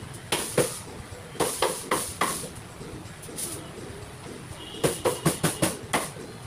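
Cleaver chopping spit-roasted chicken on a chopping block: a few separate chops in the first couple of seconds, one more in the middle, then a quick run of about six chops near the end.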